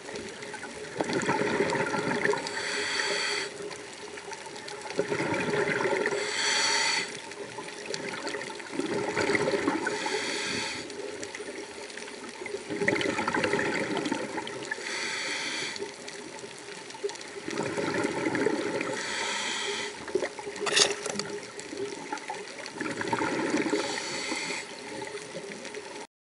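Scuba diver breathing through a regulator, heard underwater: a hiss on each inhale and a gurgling rush of exhaled bubbles, repeating about every four seconds. A single sharp click comes about two-thirds of the way through.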